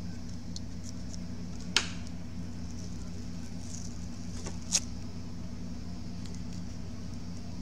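Small handling clicks as the mixer's circuit board and parts are moved about on the workbench: two sharp taps, about two seconds in and again near five seconds, over a steady low electrical hum.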